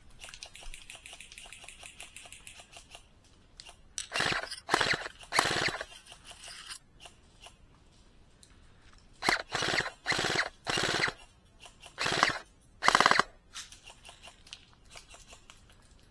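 Double Bell BY-810s airsoft replica, tuned to about 1.0–1.2 J, firing about nine short full-auto bursts, each a quick rattle of shots. Three bursts come about four seconds in, and six more come in quick succession about halfway through. Fainter rapid airsoft fire is heard at the start.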